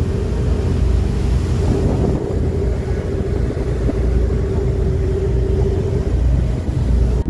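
Fast ferry under way: its engines give a steady low drone with a constant hum, while wind rushes over the microphone and the wake churns and hisses behind the stern.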